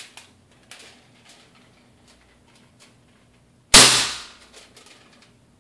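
A single sharp crack about three and a half seconds in, dying away over about a second: a 1900 µF capacitor bank charged to about 200 volts dumps its charge into an aluminum sheet laid across its terminals. Faint light clicks of the sheet being handled come before it.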